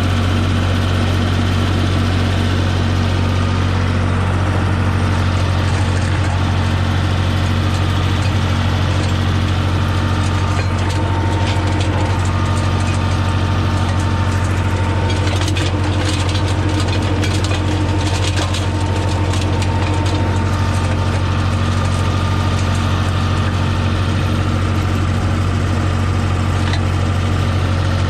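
Holder A45 tractor engine running steadily while its mulcher chops vine prunings, with a stretch of crackling clicks from the chopped wood about halfway through.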